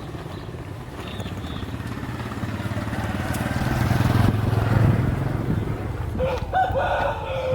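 A motor vehicle engine passing close by, growing louder to about four to five seconds in and then fading, with a brief voice near the end.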